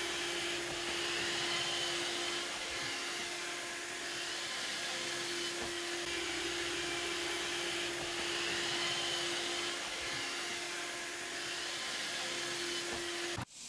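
iRobot Roomba 880 robot vacuum running: a steady motor hum with one constant low tone and a faint whine that wavers now and then. It cuts off suddenly near the end.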